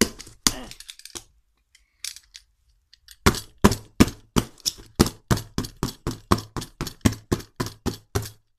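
Utility knife blade being stabbed repeatedly into a cardboard box. A few sharp stabs come at the start, then after a pause a fast, even run of about four stabs a second lasts for the last five seconds.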